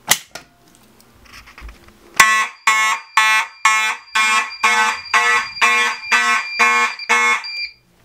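A Fire-Lite BG-12L pull station is pulled with a sharp snap. About two seconds later Simplex fire alarm horns start sounding in march time, buzzy blasts about two a second, and cut off abruptly near the end.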